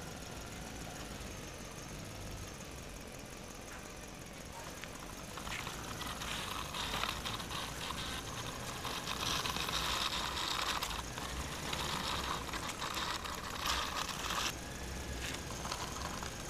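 Plastic toy construction vehicle's wheels rolling and scraping over gritty ground, a rough clicking rattle that starts about five seconds in and stops abruptly near the end.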